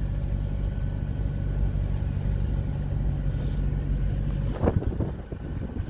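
A car engine running steadily, heard from on board a moving vehicle. About four and a half seconds in, the steady engine sound breaks off and a few short knocks follow.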